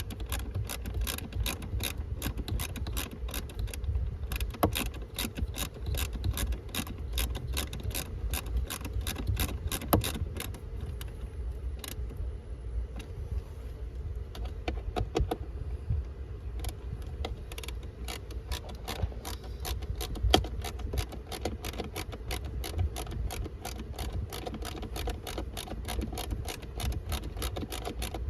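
Rapid, steady clicking of a hand ratchet, several clicks a second, as screws are worked in during the blower motor fitting.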